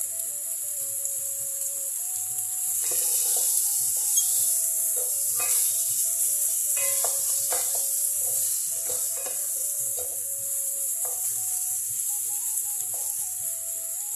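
Chicken keema filling sizzling in a non-stick pot while a wooden spatula stirs it, scraping through the mince in repeated strokes. The sizzle gets louder about three seconds in.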